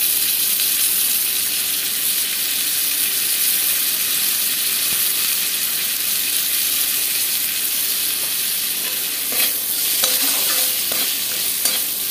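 Cashews, almonds and peanuts frying in hot oil in a metal kadhai, sizzling steadily, with lemon juice just squeezed in. From about nine seconds in, a metal spatula scrapes and clicks against the pan a few times.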